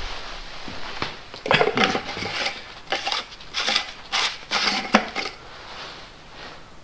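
Oil filter housing cover on a Mercedes M113 V8 being gripped and turned by hand. There is a run of short scraping and clattering knocks from about a second and a half in until about five seconds in.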